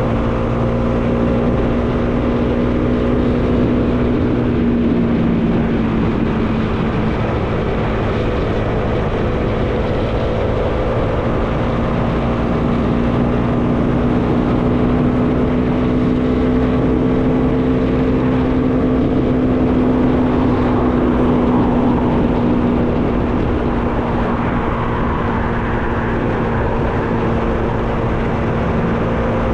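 Bajaj Dominar 400's single-cylinder engine running at a steady cruise, its pitch rising and falling slightly, under wind noise.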